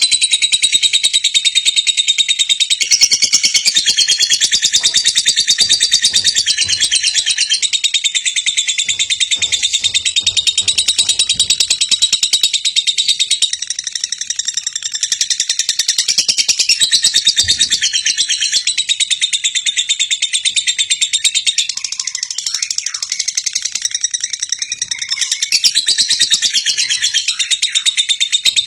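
Lovebird singing a long ngekek: a rapid, high chattering trill that goes on without a break.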